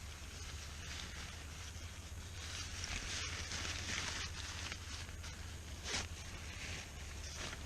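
Nylon poncho tarp rustling and swishing in irregular strokes as it is handled and wrapped around a pack, with a few louder swishes partway through.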